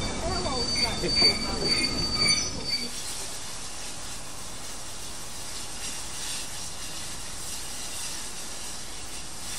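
Railway coach wheels squealing on the rails with a steady high-pitched whine over a low rumble as the coaches roll slowly past along the platform. Nearly three seconds in it cuts off abruptly to a quieter, steady hiss.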